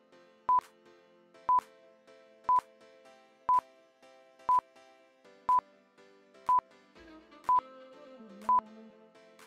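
Quiz countdown timer sound effect: short high beeps once a second, nine in all, over faint soft background music.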